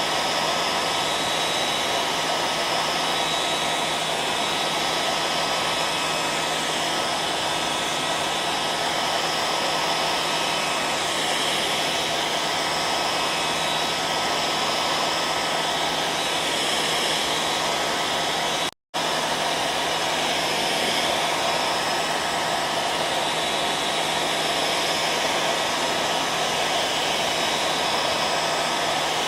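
Hair dryer running steadily: a constant blowing rush with a thin steady whine in it. It cuts out to silence for a split second about two-thirds of the way through.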